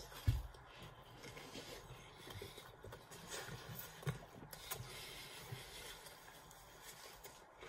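Faint chewing of soft glazed cinnamon rolls by two people, with quiet mouth and rubbing sounds and a single low thump just after the start.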